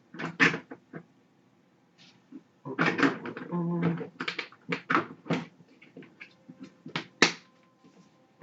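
Plastic parts of a cat exercise wheel knocking and clicking as they are handled and snapped together, in a string of separate sharp clicks and knocks. A short steady tone sounds about three and a half seconds in.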